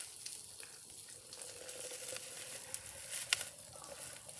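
Water pouring from a kettle into a glass French press: a soft splashing hiss with a faint tone that creeps up in pitch as the press fills. A single light click a little after three seconds in.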